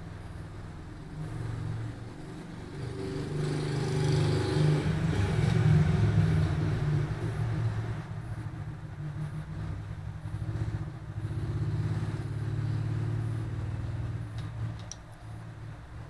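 Sunnysky 980kv brushless outrunner motor spun by hand with a rough, grinding bearing rumble that swells and dies away twice: the sign of a notchy, worn bearing.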